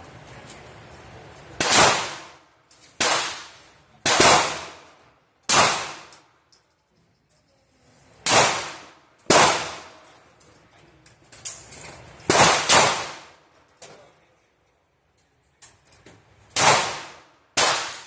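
Gunshots at a shooting range: about nine sharp reports at irregular intervals, each followed by a brief ringing decay.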